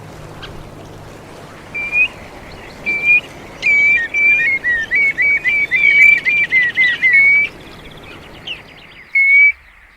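A bird calling in clear whistled notes: two single notes, then about four seconds in a rapid run of rising and falling notes, and one more note near the end, over a steady background hiss and low hum.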